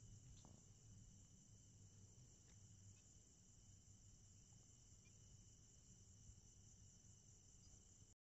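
Faint, steady chorus of crickets: a continuous high trill with a thinner second tone below it, over a low rumble.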